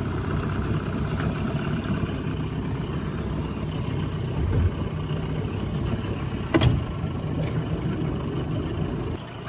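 25 hp Yamaha outboard on a small aluminium boat running steadily, with one sharp knock about six and a half seconds in.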